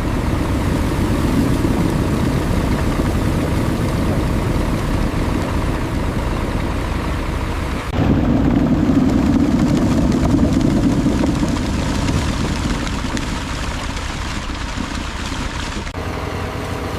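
Steady, dense rumble of running factory machinery, changing abruptly about eight seconds in and again near the end.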